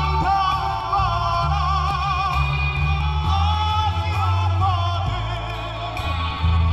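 A man singing into a handheld microphone with marked vibrato, over live band accompaniment with a prominent bass line changing notes every second or so.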